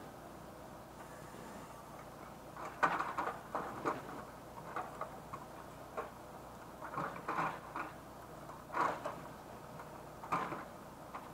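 Logs knocking together as a timber truck is unloaded: a series of irregular dull knocks and clunks, some in quick clusters, over a faint steady background noise.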